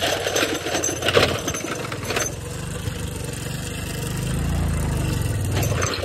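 Small motorcycle's engine labouring up a steep, rocky hill road. For the first two seconds the bike rattles and clatters over the broken surface, then the engine settles into a steady low hum that swells near the end.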